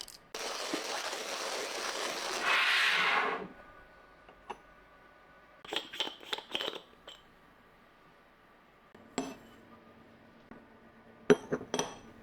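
A steady pour lasts about three seconds and grows louder near its end. It is followed by scattered light clinks and taps of glass or metal coffee-brewing ware, with a quick run of four clinks and a sharp cluster near the end.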